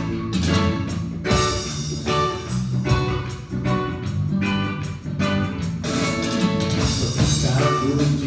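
Music: a guitar strumming chords over a bass line, with no singing.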